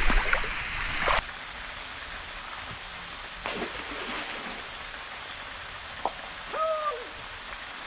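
Steady rushing water, louder for the first second, then cut sharply to a quieter stretch of the same kind of water noise. A short whistled call falls off in pitch near the end.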